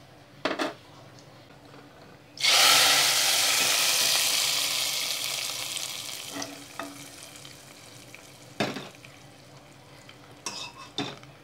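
Hot coconut-oil tempering of mustard seeds, cumin, dried red chillies and curry leaves poured into sambar. It gives a sudden loud sizzle about two seconds in that slowly dies away over several seconds, with a few short knocks of utensils before and after.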